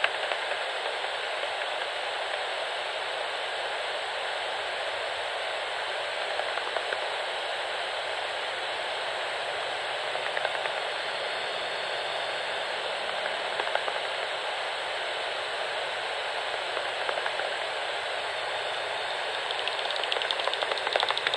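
Bat detector hissing steadily, with a few short runs of bat echolocation clicks and a denser run of rapid clicks near the end as a bat passes.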